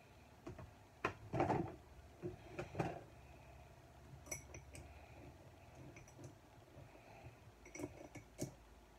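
Makeup containers and tools being handled and set down: a scatter of sharp clicks, knocks and light clinks, busiest in the first three seconds and again near the end.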